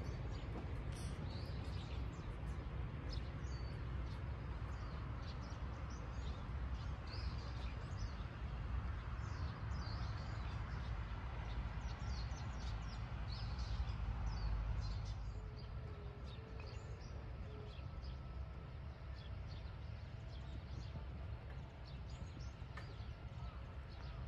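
Small birds chirping and calling again and again over a steady low rumble, which eases a little about fifteen seconds in.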